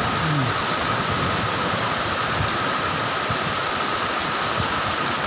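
Heavy rain falling steadily, an even hiss of water.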